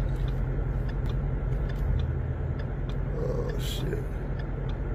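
Railroad crossing bell striking about twice a second over a steady low engine rumble from an idling vehicle, with a short hiss about three and a half seconds in.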